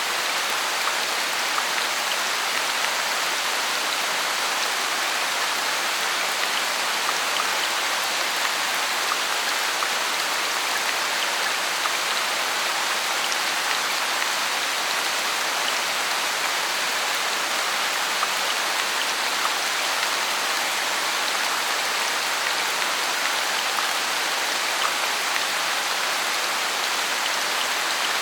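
Steady rain falling, an even hiss with scattered small drop ticks, unchanging in loudness.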